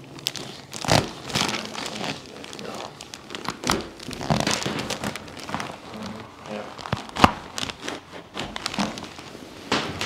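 Rustling and crinkling of a paper headrest cover and clothing as a chiropractor's hands work over a patient's back and neck. A few sharp cracks cut through it, the loudest about seven seconds in.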